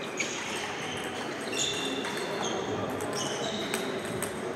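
Table tennis rally: the ping-pong ball clicking off bats and table in sharp, separate knocks, with short high squeaks of shoes on the wooden sports-hall floor.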